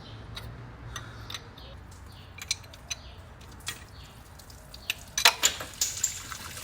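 Irregular light metallic clicks and clinks of a 19 mm wrench working a GM truck engine's coolant temperature sensor loose, with a few louder clinks about five seconds in.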